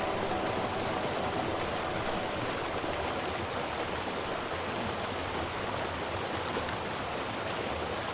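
Shallow rocky river flowing, a steady rushing of water.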